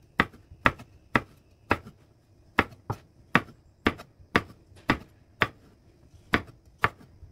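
Kitchen knife chopping eggplant into triangular chunks on a wooden cutting board: sharp knocks of the blade on the board about two a second, pausing briefly twice.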